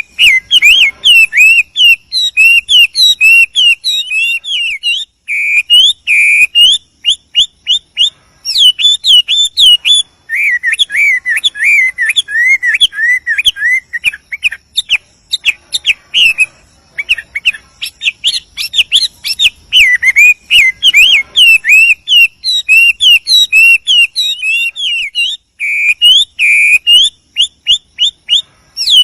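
Chinese hwamei (melodious laughingthrush) singing a long, loud, varied song of rapid whistled notes and slurs, with a few brief pauses between phrases.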